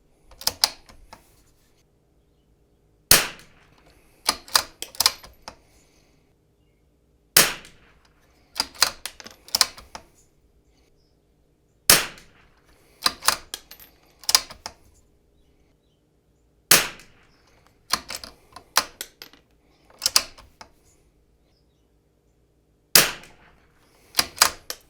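A Zermatt Rim-X bolt-action .22LR rifle firing RWS R50 ammunition from the bench: five sharp shots spaced about four to six seconds apart. Each shot is followed about a second later by a quick run of metallic clicks as the bolt is worked to chamber the next round.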